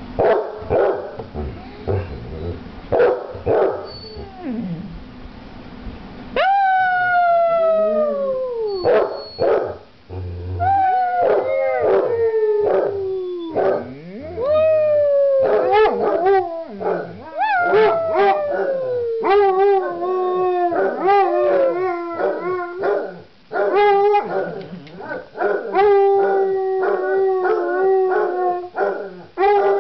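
Two basset hounds barking and howling together. Short barks come first; about six seconds in, long howls begin that slide down in pitch, later held at a steady pitch and broken into rhythmic bays.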